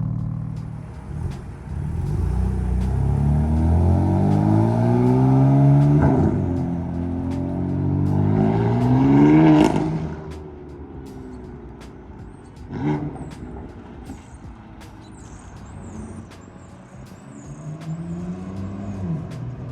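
BMW F80 M3's S55 twin-turbo straight-six, breathing through an Active Autowerke single mid pipe with the stock catback and exhaust valves held open, accelerating hard: the pitch climbs, breaks briefly at a gear change about six seconds in, climbs again to a peak near ten seconds, then the throttle closes. A single sharp crack comes about three seconds later as the engine settles to a lower drone, which builds again near the end.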